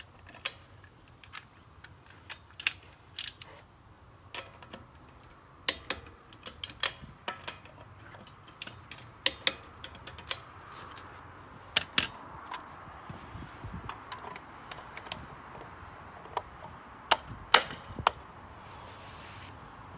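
Socket wrench working the lug nuts on a wheel mounted over a wheel spacer: irregular sharp metallic clicks and clinks, often several in quick succession, some with a brief high ring of steel.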